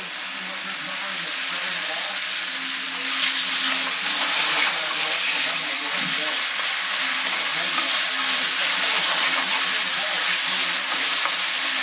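Cubed chicken breast sizzling steadily as it fries in hot olive oil in a pan.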